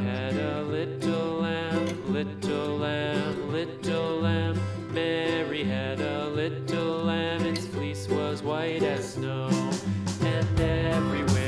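Country-style background music led by plucked guitar, with a steady beat.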